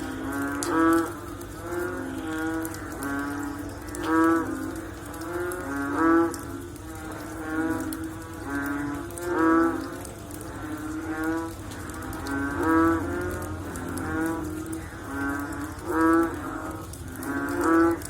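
A chorus of frogs calling after rain: low, pulsed croaking calls from several frogs overlap, with a loud call about every one to two seconds.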